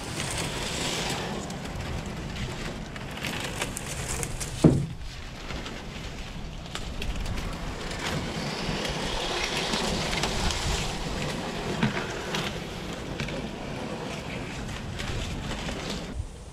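Dry cattails crackling and rustling as a jon boat and the man poling it push through them, with one sharp knock nearly five seconds in.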